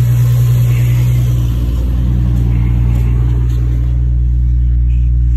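Infiniti G35's 3.5-litre VQ35 V6 idling steadily, running untuned on a newly fitted Kinetix intake manifold just after its first start.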